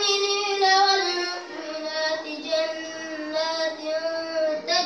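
A young girl singing solo without accompaniment, a melodic chant in long held notes that step up in pitch about a second and a half in.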